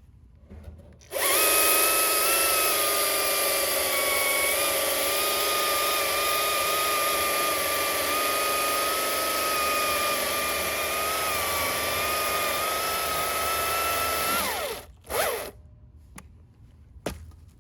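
Husqvarna T540i XP battery chainsaw running at a steady high whine for about thirteen seconds, the pitch dipping slightly now and then as it cuts. Near the end the whine winds down, followed by one short blip of the motor.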